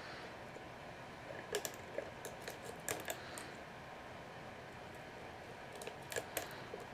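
Steel lock pick clicking and scraping against the pins inside a spool-pinned Master Lock No. 570 padlock, with a tension wrench in the keyway. Light, scattered clicks, bunched about one and a half to three seconds in and again near the end.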